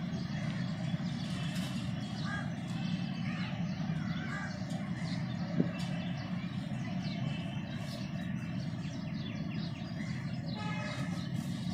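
Birds chirping and calling from the trees, with crows cawing among them, over a steady low hum. A single sharp click about halfway through is the loudest moment.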